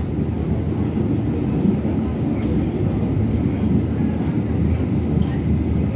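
R68A subway train in motion, a steady low rumble of wheels on rail.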